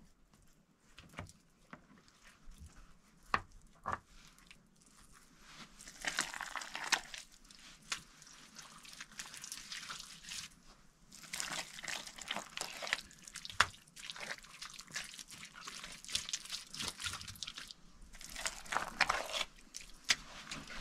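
Hands working wet mud at the base of a mud oven: wet squelching, crumbling and crunching of mud clods as they are pressed into place, with a few sharp clicks in the first few seconds.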